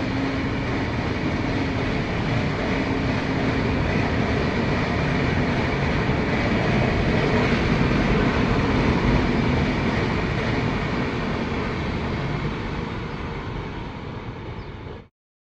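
A passing train's steady rumble of wheels on the track, swelling to its loudest about halfway through and then easing off, before cutting off suddenly near the end.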